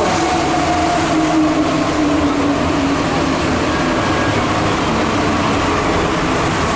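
Santiago Metro Line 2 rubber-tyred train heard from inside the car as it slows into a station: steady running noise, with a motor whine that falls in pitch over the first few seconds.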